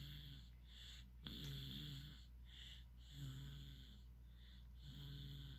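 Baby snoring softly, one snoring breath about every two seconds, each with a low pitched snore and a breathy hiss between them.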